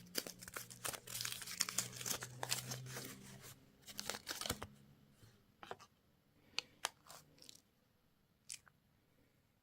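Crinkly candy or toy packaging being torn open and crumpled for about four and a half seconds, followed by a handful of separate light clicks.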